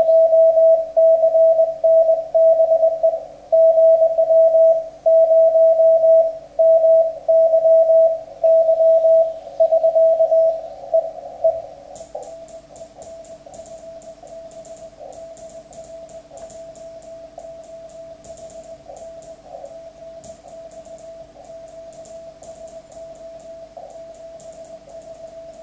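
Morse code (CW) sidetone from a ham radio transceiver on the 40 m band: a loud, single steady tone keyed on and off in dots and dashes. About twelve seconds in it drops to a much fainter keyed Morse signal with hiss and crackle, the receiver picking up the other station.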